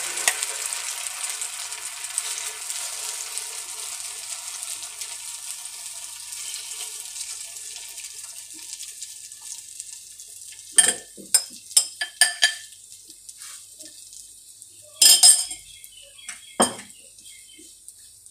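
Shredded cabbage, potato and egg mixture sizzling in hot oil in a nonstick frying pan on low heat, the sizzle fading over the first several seconds. Past the middle, a metal spoon clinks and scrapes against the pan in two short runs of sharp taps.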